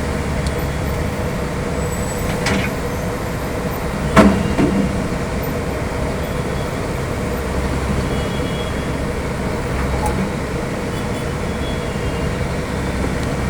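Heavy diesel engine running steadily as a road paver crawls slowly onto a trailer, with a sharp metallic clank about four seconds in and a lighter one a little earlier.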